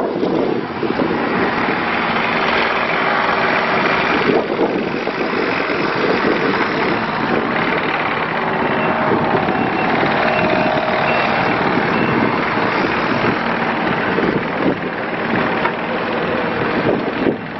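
Kubota U35-4 mini excavator running, its diesel engine running steadily with brief faint higher tones in places.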